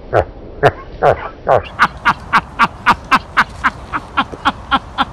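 A person laughing hard in a quick run of short bursts, about two a second at first and then about four a second, with each burst falling in pitch.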